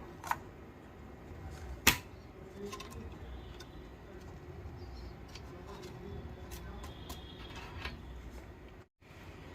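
Scattered clicks and taps of computer parts being handled, with one sharp click about two seconds in.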